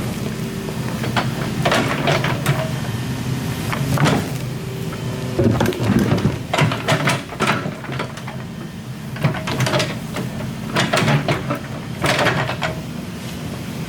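Excavator's diesel engine running steadily, with repeated knocks and scrapes as the machine works the ground.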